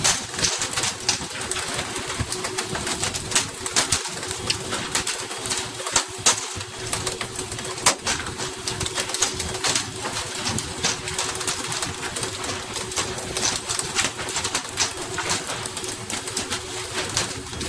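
Fishing boat at sea during pole-and-line tuna fishing: a steady engine hum under rushing spray, with frequent sharp knocks and slaps as hooked fish land on the deck.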